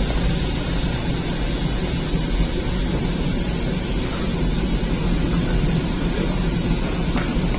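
Steady, even roar of a bakery's rotating bread oven running, with a faint click near the end.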